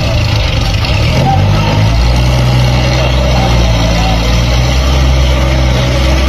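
A large engine running steadily, its pitch stepping slightly a couple of times, with faint voices in the background.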